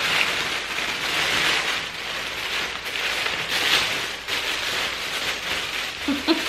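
Honeycomb kraft wrapping paper and tissue paper rustling and crinkling continuously as a parcel is torn open and unwrapped by hand.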